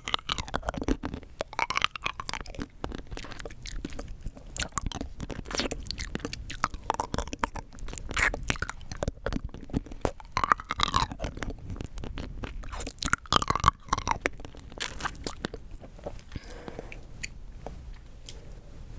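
Rock candy being bitten and crunched between the teeth close to the microphone, a dense run of sharp cracks and crunches that thins out and grows quieter near the end.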